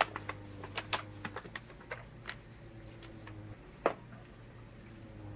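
Scattered light clicks and taps, about a dozen irregular ones with a sharper knock right at the start and another near four seconds in, from handling a field ration's food pouches, packets and utensils, over a faint steady hum.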